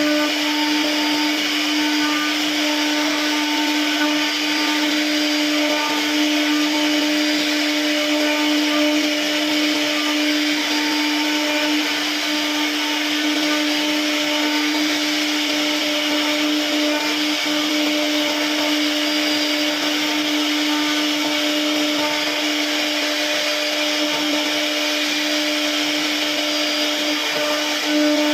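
CNC router spindle running at a constant speed with a steady whine, over the hiss of the bit cutting wood.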